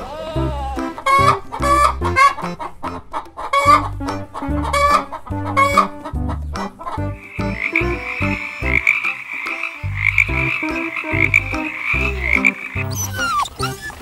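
A run of short repeated animal calls for about six seconds, then a tree frog calling in a steady pulsing trill for about six seconds that stops shortly before the end.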